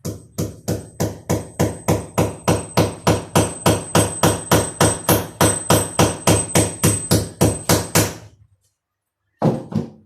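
A hammer striking hard repeatedly in a steady rhythm, about four blows a second, for about eight seconds, then stopping, with one more short burst near the end.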